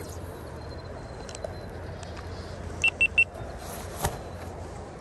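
Three short high electronic beeps in quick succession, over the steady rush of river water and wind; a sharp click follows about a second later.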